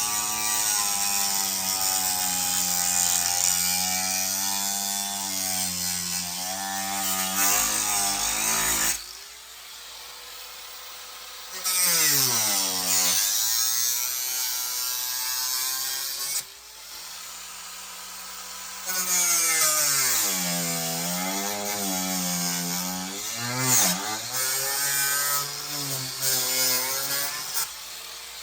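Electric power tool cutting, its motor pitch sagging and recovering as it loads up. It drops out twice for a couple of seconds, leaving only a faint steady hum.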